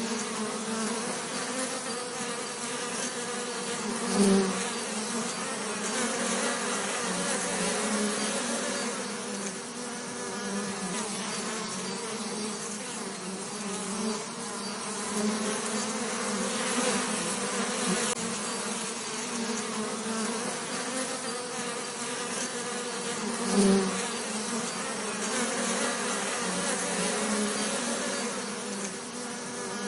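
Bees buzzing steadily, with a continuous low drone and hiss. The buzz swells louder briefly about four seconds in and again near twenty-four seconds.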